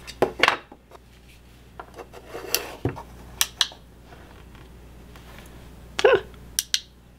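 Handling noise: scattered clicks and light knocks of a plastic USB battery pack and a small plastic camping lamp being picked up, worked and set down on a workbench.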